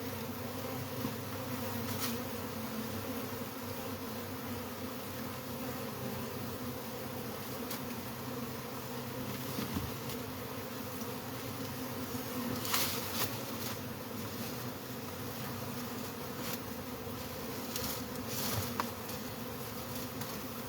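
Honeybee colony buzzing steadily, many bees in the air around the disturbed hive. A few faint knocks of handling come through, a couple near the middle and one near the end.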